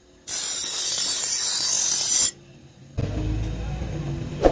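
Bench grinder's abrasive wheel grinding the edge of a steel sickle blade, a steady high hiss of about two seconds that stops suddenly. After a short lull a lower steady hum takes over, with a sharp click at the very end.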